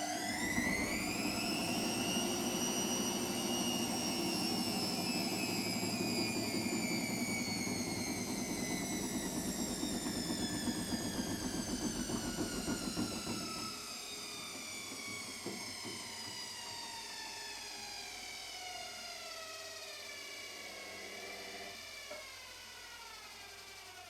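Washing machine's motor and drum at the end of a spin: a whine that climbs for a couple of seconds, then falls steadily in pitch as the drum slows down. A loud rumble under it drops away about halfway through.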